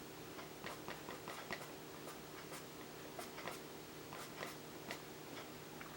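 Stabilo CarboThello pastel pencil making short feathering strokes on vellum-surface mixed media paper: faint, irregular scratchy ticks, roughly two a second. A faint steady hum sits underneath.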